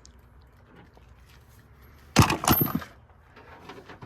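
A short clatter of hard loose objects knocking together, several quick knocks in a row about two seconds in, with a brief high metallic ring.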